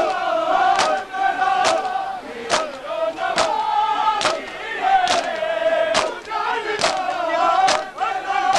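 Crowd of Shia mourners performing matam: men chanting a lament together in long held lines, with a sharp chest-beating slap from many hands in unison a little more than once a second.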